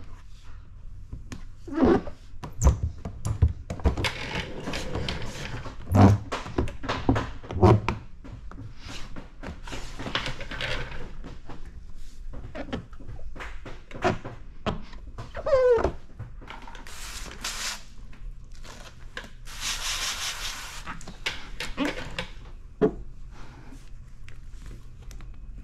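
Plastic squeegee rubbing and squeaking over wet paint protection film on a car bumper, with scattered knocks from handling the panel and film. About two-thirds of the way through, two hisses of a spray bottle, the second one longer.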